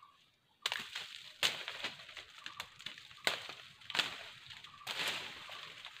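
Dry leaves and twigs crackling and rustling as they are handled, with sharp snaps about once a second. It starts suddenly about two-thirds of a second in.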